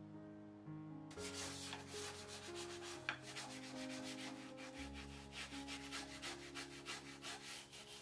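Small bristle brush scrubbing the door glass of a front-loading washing machine in rapid back-and-forth strokes, several a second, starting about a second in.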